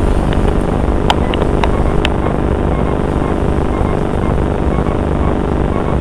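Steady, loud rumble of aircraft engines, with some wind noise on the microphone and a few light clicks in the first two seconds.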